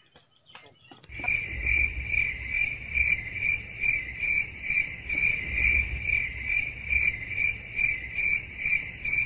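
Cricket chirping: one high, even chirp repeated about twice a second, with a low rumble beneath. It starts about a second in.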